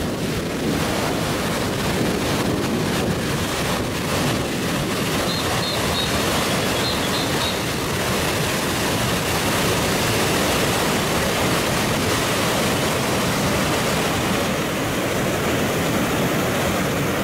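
Loud, steady rushing roar of a big whitewater waterfall and rapid pouring over rocks.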